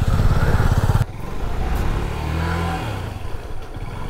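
Suzuki V-Strom SX 250's single-cylinder engine pulling hard on a dirt trail, then the throttle shuts about a second in and the engine drops to a lower, steady run, with a brief rise and fall in revs around the middle.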